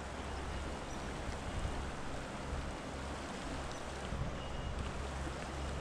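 Shallow river water running steadily over cobbles around the wading angler, with a low rumble underneath.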